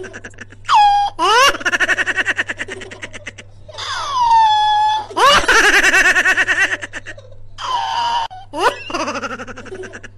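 Loud, high-pitched laughter in long ha-ha runs, broken by several quick rising swoops in pitch.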